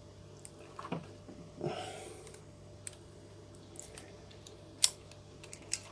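Small mechanical clicks from the front controls of a Canon EF 35mm SLR worked by hand as its depth-of-field preview (stop-down) lever is pressed: about half a dozen scattered clicks, the loudest near the end.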